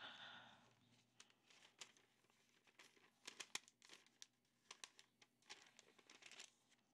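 Faint rustling and crinkling of parchment paper being folded over and creased by hand: a brief rustle at the start, then scattered soft crackles, a few more about three and a half seconds in and near the end.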